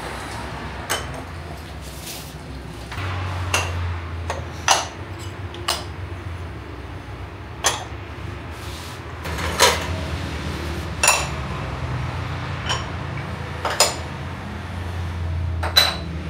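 Clay lids set one by one onto glazed ceramic dizi pots, each landing with a sharp clink, about a dozen in all, over a low steady hum that grows louder about three seconds in.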